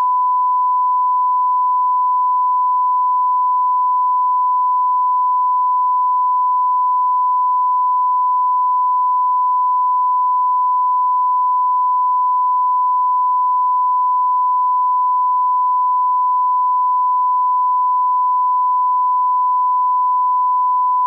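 Steady, unbroken 1 kHz sine-wave reference tone at a constant level: the line-up test tone that goes with colour bars.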